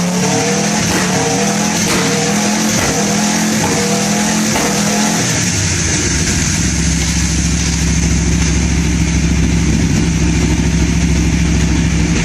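Aprilia RSV4 R V4 motorcycle engine accelerating hard through a string of quick upshifts on a quickshifter: the engine note climbs, breaks briefly at each shift, and climbs again. After about five seconds the engine holds a steady note.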